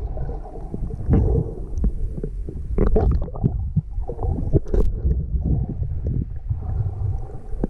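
Muffled underwater sound from a submerged camera: low rumbling and gurgling of water moving around the camera, with a few sharp knocks or clicks, about one, three and five seconds in.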